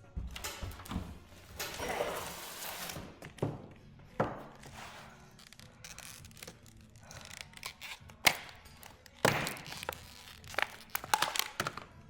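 Plastic front grille and bumper parts of a Honda Civic being handled and fitted, with a stretch of scraping and rustling followed by a series of sharp plastic knocks and clicks, several in quick succession near the end.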